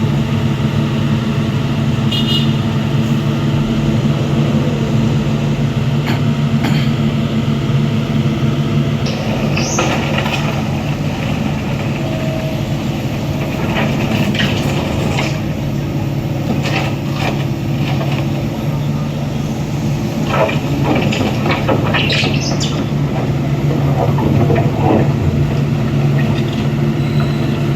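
Diesel engine of heavy earthmoving machinery running steadily, a constant low drone. Short knocks and brief higher sounds come and go over it, mostly in the second half.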